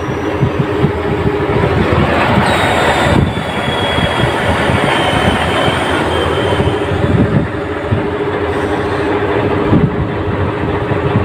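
Grove GMK5130 mobile crane's machinery running as a loud, even mechanical noise with a steady drone while the carrier's suspension is being lowered.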